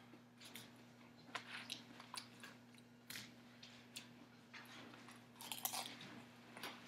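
Faint crunching of lettuce and salad being chewed, with light clicks of a knife and fork cutting through the salad in its plastic bowl; the crunching is densest near the end.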